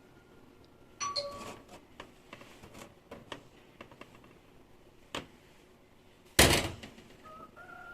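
Household items being handled and set down: a cluster of clicks and light clinks about a second in, a single sharp click past the middle, and a loud knock near the end, the loudest sound.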